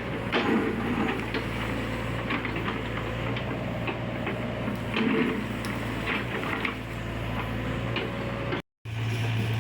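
Diesel engine of an XCMG XE60GA excavator running steadily, with scattered clicks and knocks and two short louder rumbles, about half a second and five seconds in. The sound drops out for an instant near the end.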